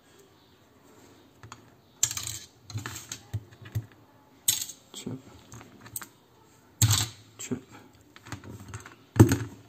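Irregular sharp clicks and knocks of small plastic and metal parts being handled: the coil, plastic switch block and screwdriver of a dismantled electric shaver, moved about on a wooden table. The louder knocks come about two, four and a half, seven and nine seconds in, with lighter clicks between.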